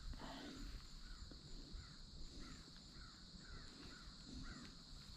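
Faint crows cawing: a quick run of short caws, about two a second, beginning about two seconds in.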